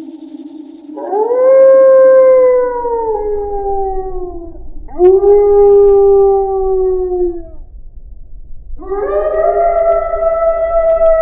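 Wolf howling: three long howls, the first rising and then sliding slowly down, the second shorter and lower, the third rising and holding its pitch.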